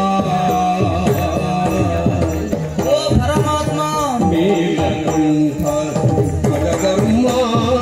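Yakshagana accompaniment music: a steady drone with a gliding melody line over hand-drum strokes.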